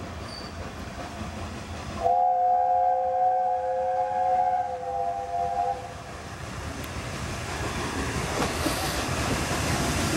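Steam locomotive 60163 Tornado, a Peppercorn A1 Pacific, sounds its chime whistle in one long blast of nearly four seconds starting about two seconds in. Afterwards the train's rumble and steam hiss grow steadily louder as it approaches.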